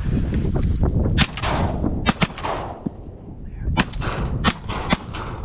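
Shotgun fire at ducks overhead: about six blasts spread over nearly four seconds, two of them in quick succession about two seconds in.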